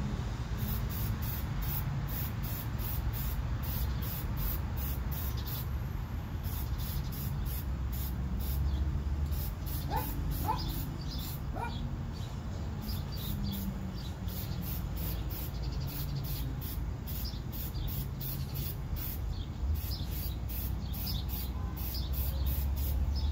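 Aerosol spray paint can being shaken, its mixing ball rattling about three times a second in runs with short pauses, over a steady low rumble. A few short rising bird chirps come about halfway through.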